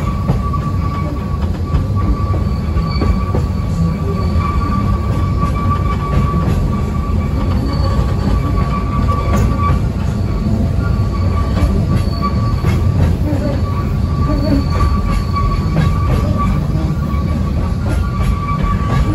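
Oigawa Railway Ikawa Line train descending the Abt rack section behind its rack locomotive: a steady rumble of wheels on rail, with a high, steady squeal that drops out briefly a few times and scattered light clicks.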